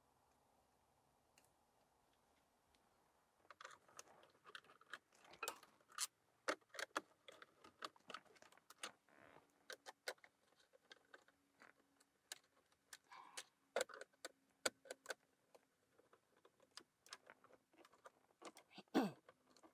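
Irregular metallic clicks, taps and light rattles of a Citroën DS's speedometer cable coupling being worked loose by hand, starting a few seconds in. A faint steady hum sits underneath in the second half.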